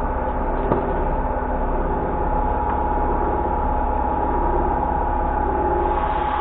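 Metal lathe running steadily, its motor and gearing giving a constant hum with a steady whine. A single sharp click about three-quarters of a second in.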